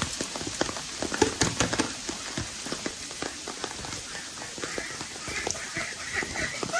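Rain pattering with scattered drops. From about halfway in, poultry call faintly in short repeated calls.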